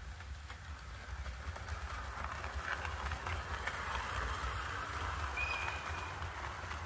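AC electric train running on the track: a low rumble under a rushing rolling noise that grows louder toward the middle. A brief high-pitched squeal comes about five and a half seconds in. It is the kind of odd noise that, by the uploader's account, AC trains make, with the cause left unstated.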